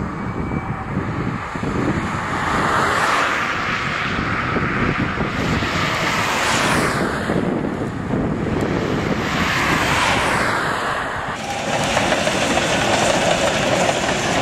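Steam locomotive working as it hauls a passenger train, a loud, steady rushing sound that swells and fades a few times.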